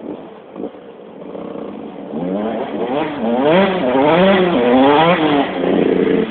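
A 125 cc two-stroke motocross bike passing, its engine revving up and down in pitch again and again as the rider works the throttle. It builds from about two seconds in, is loudest in the middle to late part, and drops away at the end.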